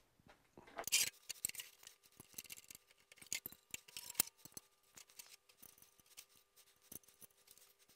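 Quiet, scattered light clicks and taps, with a brief rustle about a second in, as the longarm quilting frame's rail and loose parts are handled on the table.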